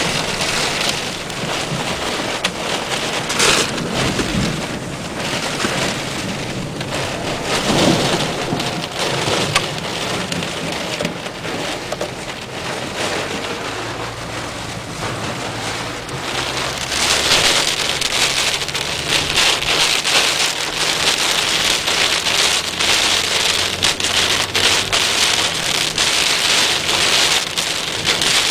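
Heavy thunderstorm rain pouring and pattering on surfaces, getting heavier a little over halfway through, with low rumbles of thunder early on.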